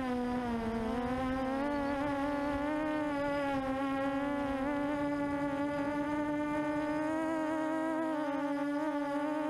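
QAV400 quadcopter's electric motors and propellers buzzing in flight, the pitch dipping briefly about half a second in, then holding steady with small wobbles as the throttle shifts. A low rush of wind noise on the onboard microphone lies under it and drops away near the end.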